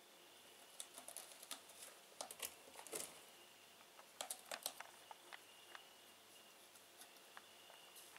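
A kitten's claws catching and scratching on a rope-wrapped scratching post as it paws at the post: faint, irregular clicks and scratches, bunched in two flurries, with the loudest near the middle.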